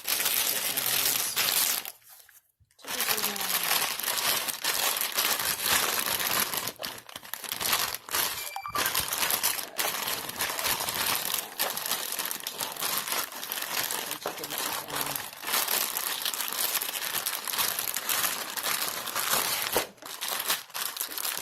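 A sealed plastic bag holding chicken wings and dry seasonings is shaken and squeezed to coat the wings, and the plastic crinkles steadily. There is a short pause about two seconds in.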